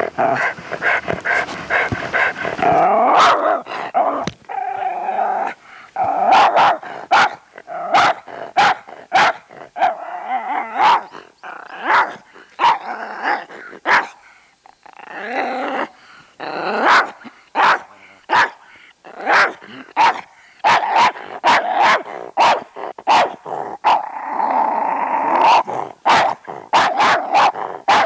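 A miniature schnauzer barking over and over, about one to two barks a second, with growling between the barks and a short pause about halfway through.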